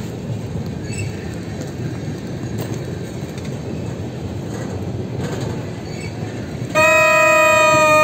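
Freight train of tank cars rolling past with a steady rumble of wheels on the rails. Near the end, a locomotive air horn sounds one long, steady blast of about a second and a half, louder than the train.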